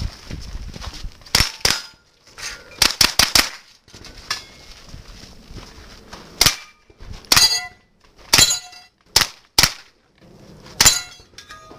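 Gunshots from pistol-calibre carbines and submachine guns, fired singly and in quick strings of three or four, with steel targets ringing after several hits.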